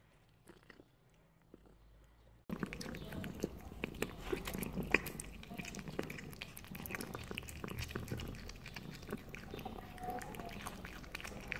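A cat chewing and biting on a piece of meat: a run of quick, wet clicks and smacks, faint at first and much louder from about two and a half seconds in.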